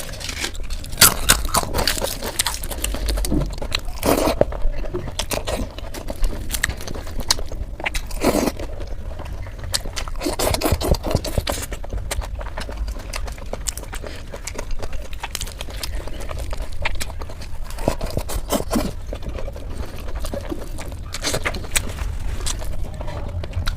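Close-miked eating sounds: baigan bhaja (fried eggplant) being bitten and chewed, with many short clicks, crunches and scrapes.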